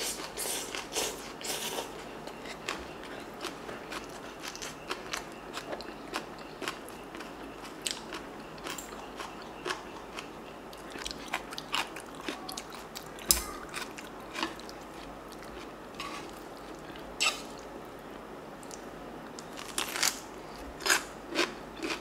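Close-miked eating sounds: wet chewing and irregular crisp crunches as bean sprout rice and stuffed cucumber kimchi (oi-sobagi) are bitten and chewed, with a slurp at the very start and louder crunches scattered through.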